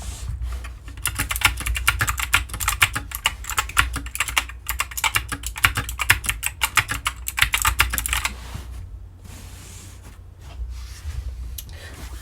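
DK61 60% mechanical keyboard with clicky blue switches being typed on fast in a sound test: a dense run of keystroke clicks for about seven seconds, then fewer, quieter keystrokes, over a steady low hum.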